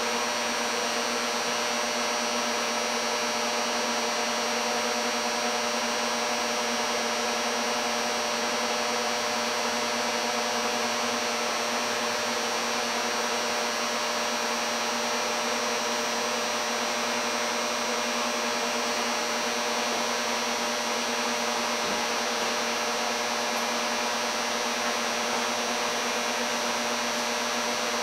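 Steady whirring hum of a homemade induction heater and its cooling fan running under load while heating an iron billet to a bright orange glow. Several steady tones sit within the whir, which stays even throughout.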